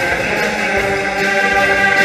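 Amateur concert wind band of flutes, clarinets and brass playing held chords in a pop-song medley, with the reverberation of a church.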